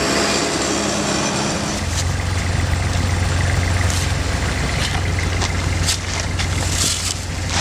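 A JCB skid-steer loader's diesel engine running steadily; its hum turns lower and heavier about two seconds in. In the last few seconds, a rake and a shovel scrape and knock on loose asphalt mix being spread into a patched pothole.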